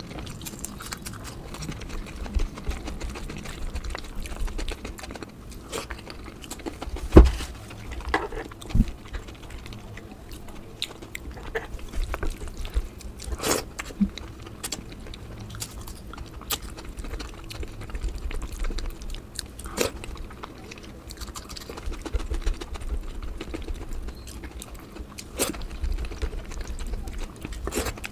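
Close-miked eating: steady chewing with small wet clicks and smacks, and a sharper knock about seven seconds in.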